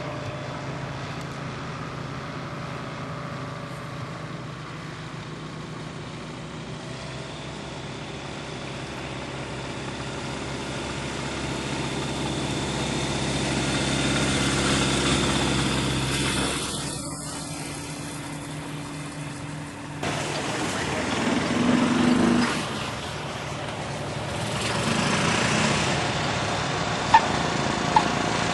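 Light aircraft engine and propeller running steadily. The sound swells to a peak about halfway through and fades, changes abruptly about two-thirds in, then swells again.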